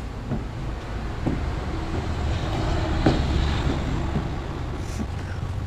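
Steady low rumble, with a few faint short knocks and scrapes over it.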